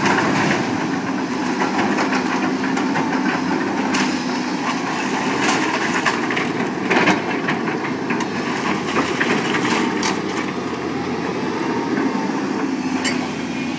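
A heavy machine's engine running steadily through a house demolition, with repeated cracks and clatter of breaking wood and falling debris.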